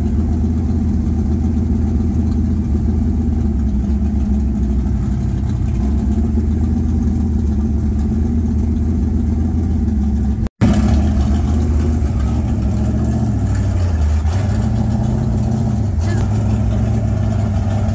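Dirt late model race car's V8 idling with an even note, the note shifting briefly about three-quarters of the way through as the car is driven up the ramp into an enclosed trailer.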